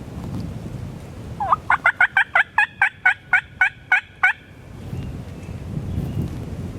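A loud run of about a dozen turkey yelps, evenly spaced at about four a second, lasting about three seconds. Wind is heard before and after them.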